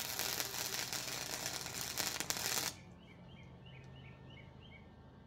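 Flux-core wire-feed welder (Flux 125) arc sizzling with sharp crackles as a bead is run, cutting off abruptly about two and a half seconds in. Afterwards a small bird chirps repeatedly.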